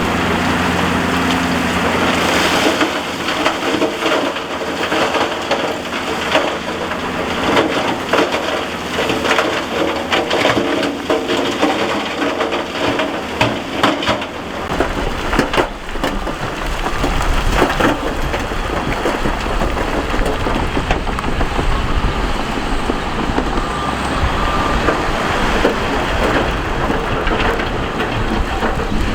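Loose rock and gravel crunching and clattering as heavy earthmoving machinery moves it, over a diesel engine running. About halfway through, a deep engine rumble comes in strongly under the crackle.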